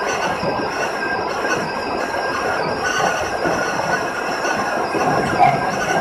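Tobu Railway local electric train running along the track, heard from the driver's cab: steady rolling noise of wheels on rails with a steady high whine over it, and a brief louder knock about five and a half seconds in.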